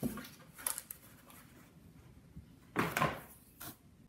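A cut-open cardboard cereal box being handled and laid flat: a few short scrapes and rustles of cardboard, the loudest about three seconds in.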